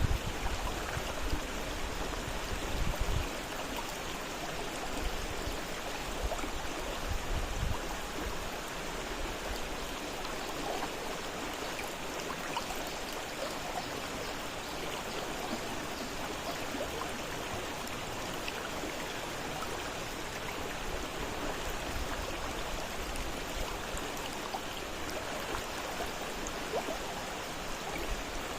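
Fast-flowing river water rushing steadily, with a couple of brief low rumbles about three and seven seconds in.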